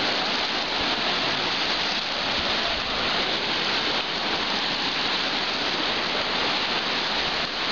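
Fast-flowing river rushing past the bank: a steady, even hiss of moving water.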